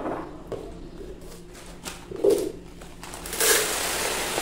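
Granola poured from its plastic bag into a plastic storage container, the dry flakes rustling and pattering in a steady rush from about three seconds in. A short low sound comes a little before it.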